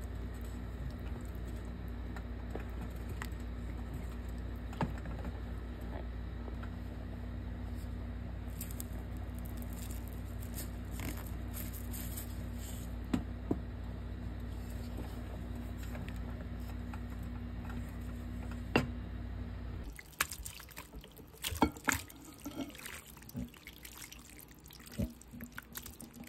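Wooden spoon stirring a thick creamy pasta sauce in a pot over a steady low hum, with a few sharp knocks of the spoon on the pot. About twenty seconds in the hum stops, and the spoon clatters and scrapes as the pasta is tipped and scooped into a bowl.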